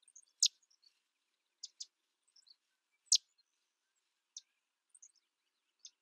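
Sedge wren giving short, sharp, high call notes at irregular intervals. The two loudest come about half a second and three seconds in, a quick double note falls between them, and fainter high chips run throughout.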